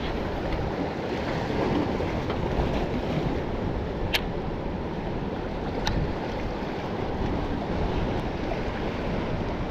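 Waves washing against jetty rocks with wind, a steady rushing noise, with two brief sharp clicks about four and six seconds in.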